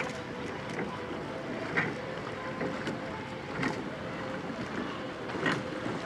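Sculling boats rowing past: the oars knock and splash once each stroke, about every two seconds, over a steady wash of wind and water noise.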